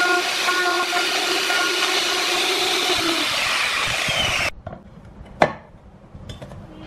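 Electric plunge router running and cutting a recess into plywood, a steady cutting noise with a motor whine that fades out about three seconds in; the noise stops abruptly about four and a half seconds in. A single sharp tap follows about a second later as the metal terminal plate is set into the recess.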